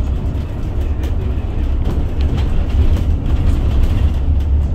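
City bus heard from inside the cabin: a steady low rumble of engine and road noise, with a few light clicks and rattles.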